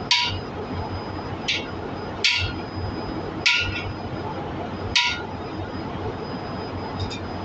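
Metal-on-metal hammer strikes on a steel tool seating a new exhaust valve seat insert in a diesel cylinder head: five sharp blows about a second or so apart, each with a short ring, and a fainter tap near the end.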